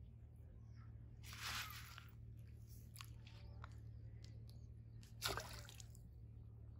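Two brief soft splashes, about a second and a half in and again just past five seconds in, over a low steady hum: baited hooks and floats dropping into still pond water as the fishing rods are recast.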